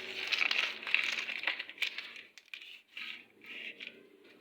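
Rustling and crinkling handling noise with many small clicks, dense for about two seconds, then three shorter bursts with gaps between them.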